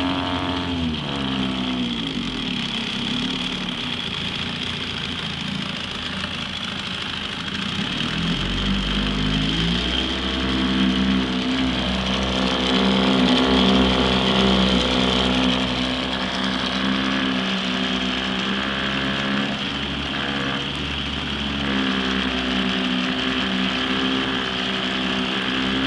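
1971 Evinrude Sportwin 9.5 hp two-cylinder two-stroke outboard running in a tank of water. It drops back to idle at the start, is throttled up about eight seconds in and held faster, eases back around twenty seconds and comes up again near the end. The motor is freshly tuned and runs well.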